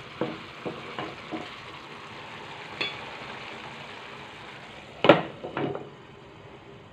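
Chana dal simmering in a nonstick pan with a steady bubbling hiss, a spatula tapping the pan a few times in the first second or so. About five seconds in, a glass lid is set down on the pan with a loud clank and a smaller knock, after which the simmer is muffled.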